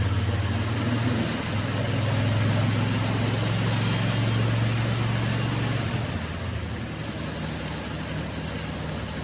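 Mini loader with a lawn mower attachment running, its engine holding a steady low drone, then easing off and dropping quieter about six seconds in.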